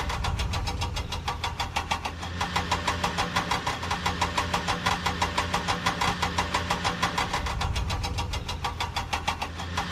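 Diesel tractor engine running steadily at idle, with an even knocking beat of about six knocks a second over a low hum.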